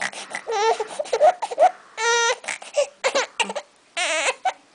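Baby crying angrily at having her bottle taken away: a series of short cries, with one long steady wail about two seconds in and a wavering wail near the end.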